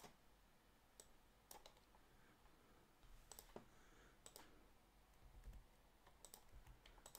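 Near silence broken by faint, scattered clicks from working the computer's mouse and keys, about nine in all.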